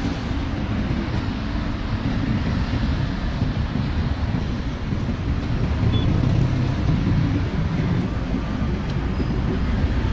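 Steady low rumble of street traffic, with no single event standing out.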